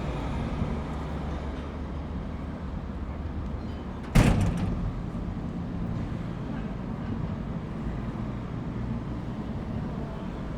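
Busy city street traffic: a steady low rumble of passing vehicles, with one loud bang about four seconds in.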